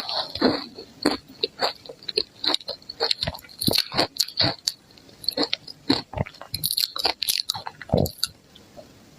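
Ice cubes dusted with matcha powder being bitten and chewed: a dense run of sharp crunches that dies away about a second before the end.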